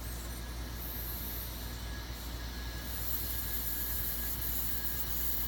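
Air hissing into a vacuum chamber as the vacuum is bled off, a high-pitched hiss that starts right at the beginning and swells and eases in strength, over a steady low hum.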